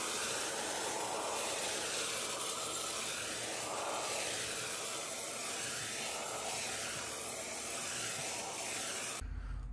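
Vacuum cleaner running steadily, sucking up aluminium machining chips through a crevice nozzle; it stops suddenly near the end.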